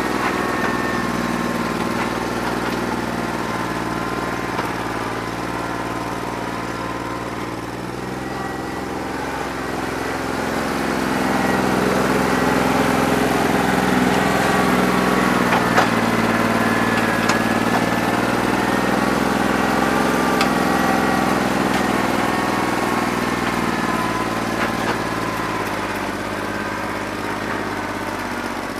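New Holland 1320 tractor's diesel engine running steadily, getting louder about ten seconds in and easing back down near the end. The engine has a bad injector, which the owner hoped would loosen up once hot.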